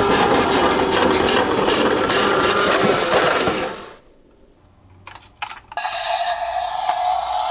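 Toy minicars clattering and rattling as they roll down a slope, a dense run of small clicks that dies away about four seconds in. A few sharp clicks follow, then a steady siren tone starts near the end.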